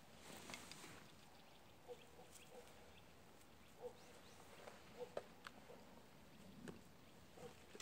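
Near silence in a forest, broken by faint scattered crackles and clicks of footsteps on twiggy, mossy ground, with a soft thump near the end as a backpack is set down.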